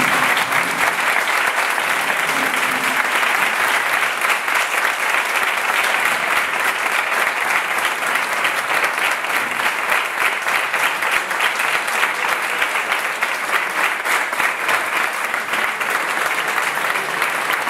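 Sustained applause from a roomful of people clapping by hand, dense and steady.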